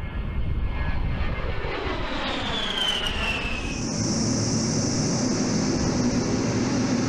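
A-10 Warthog's twin TF34 turbofan engines whining as the jet flies past, the whine falling in pitch as it passes. About four seconds in it changes to a steady high whine over a low hum of the engines in flight.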